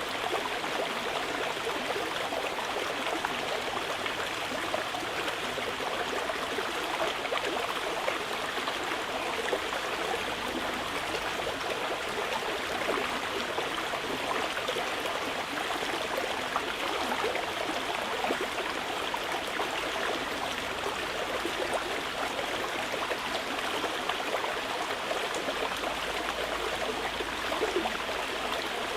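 Mountain river flowing: steady rushing and babbling water.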